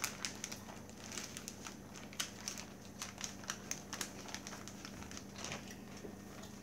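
Gallon zip-top plastic bag crinkling and crackling in irregular sharp bursts as hands press the air out of it and work its zipper closed.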